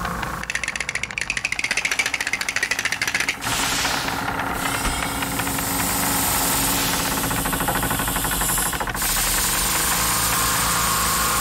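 Cartoon sound effect: a fast mechanical rattle like a small engine knocking, lasting about three seconds, then a steadier machine-like running sound that changes again near the end.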